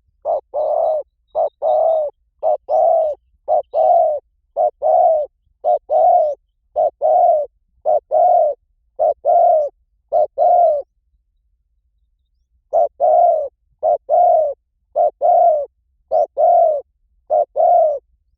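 Spotted dove cooing, a recorded lure call: a two-part coo, a short note then a longer one, repeated about once a second, with a pause of about two seconds partway through.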